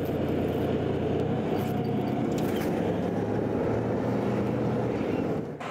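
Tank diesel engine running steadily on a test run after repair. The sound cuts off suddenly near the end.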